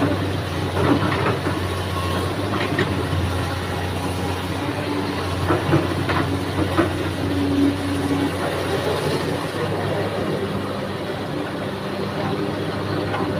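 Kobelco crawler excavator's diesel engine running steadily as the machine digs and swings, with scattered knocks and clanks from the bucket working the soil.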